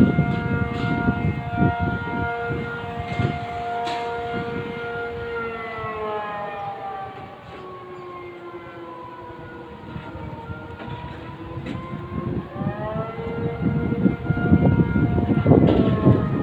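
Civil-defence air-raid siren wailing for an air-raid drill: a chord of steady tones that slides down in pitch and fades about six seconds in, then rises back about twelve seconds in. A low rumbling noise runs underneath, loudest at the start and near the end.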